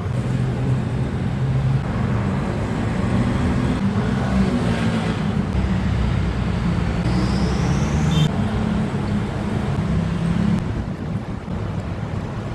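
Steady low vehicle rumble with traffic noise, and a faint rising whine about seven seconds in.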